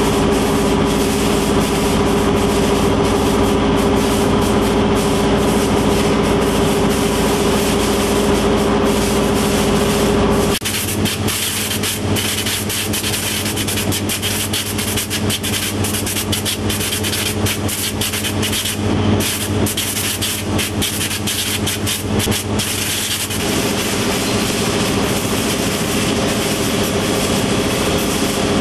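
Green pepper sorting line machinery running: a steady mechanical hum with several held tones. It changes character abruptly about ten seconds in and again a little over twenty seconds in.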